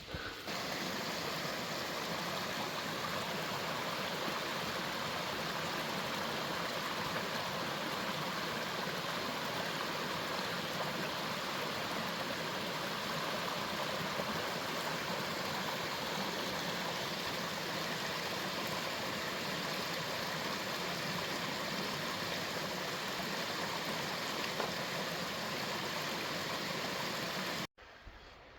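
Water of a stream rushing steadily, then cutting off abruptly near the end.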